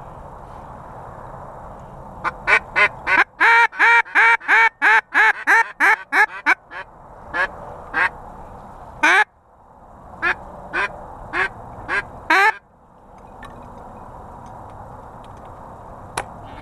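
Mallard duck call blown by a hunter: a fast, loud run of about a dozen quacks, then a handful of slower, spaced-out single quacks, stopping about two-thirds of the way through.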